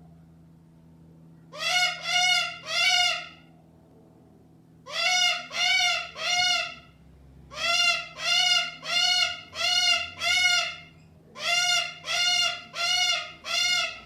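Cockatoo calling: short loud calls, each rising then falling in pitch, in four bouts of three to five calls with pauses between.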